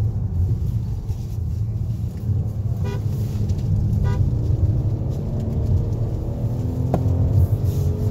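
Peugeot 5008's three-cylinder engine and road noise heard from inside the cabin while driving, a steady low rumble with the engine note slowly rising in the second half. Two short beeps come about a second apart midway.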